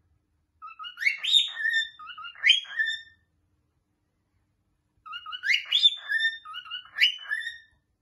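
Male grey cockatiel singing: two phrases of whistled song made of quick rising and falling notes, with a pause of about two seconds between them.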